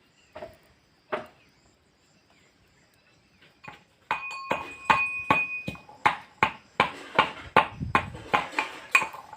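Metal kitchenware being struck over and over, about two to three knocks a second starting about four seconds in, the first strikes ringing like a metal pot. A couple of single knocks come before it.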